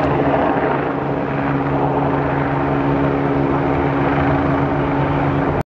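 Helicopter hovering or circling overhead: a steady engine and rotor drone with a constant low hum. The sound cuts out abruptly for a split second near the end.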